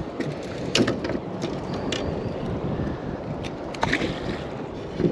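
Wind and choppy water slapping against a small boat's hull, a steady rushing wash, with a couple of short knocks, about a second in and again near the end.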